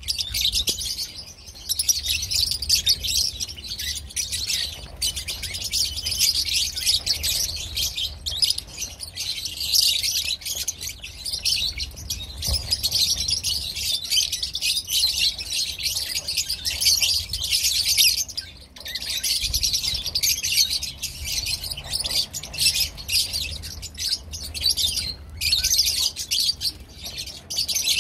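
A large flock of lovebirds chattering all at once: dense, unbroken high-pitched chirping and twittering from many birds, with a faint low rumble underneath.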